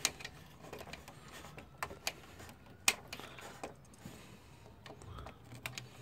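Scattered light clicks and taps of a metal socket being turned by hand on a bolt, with one sharper click about three seconds in.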